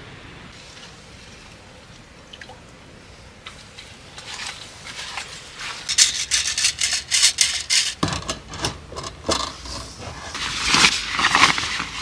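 Faint steady hiss, then from about four seconds in, irregular rustling and scraping as a white telescoping tension rod is handled and fitted across a car's cabin ceiling.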